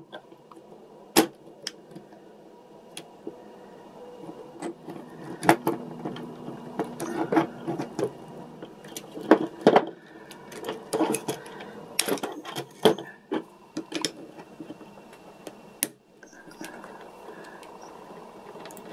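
Irregular clicks and taps of pliers and small plastic gears being handled and pressed onto the shafts of a toy's motor gearbox.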